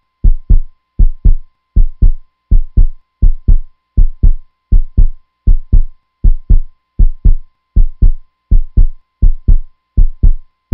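Heartbeat sound effect: a steady double thump, lub-dub, repeating about five times every four seconds, with a faint steady tone underneath.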